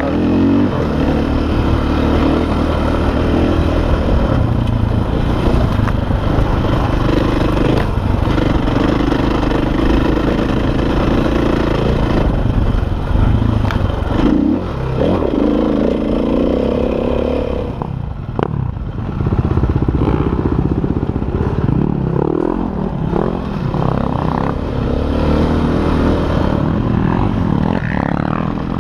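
KTM enduro dirt bike's engine running under way, the revs rising and falling as the rider works the throttle over rough, grassy ground, with a few sharp knocks from the bike.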